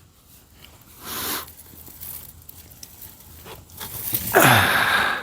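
Digging in garden soil to lift sweet potatoes: a short scrape of the tool through the dirt about a second in, small crunches and clicks, then a longer, louder scraping, tearing rush near the end.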